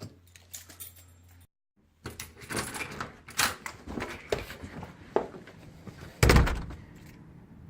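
Clicks and knocks of handling, then a door shutting with a heavy thump about six seconds in.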